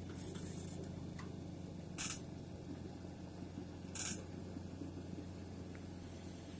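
Komatsu PC45MR mini excavator's diesel engine running steadily as it digs, with three short, sharp high-pitched bursts about two seconds apart, near the start, about two seconds in and about four seconds in, which are the loudest sounds.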